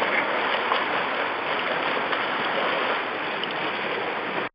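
Steady splashing, rushing water noise in a swimming pool, cutting off abruptly near the end.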